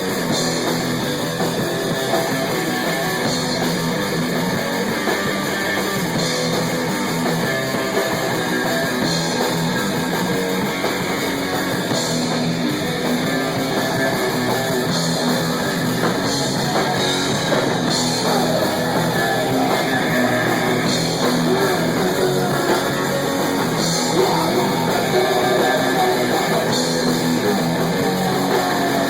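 Rock band practising a song, with guitar and drum kit.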